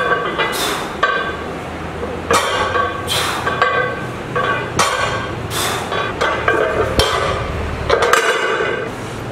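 Iron weight plates and a steel barbell clanking, a series of metallic knocks about a second or so apart, each ringing briefly.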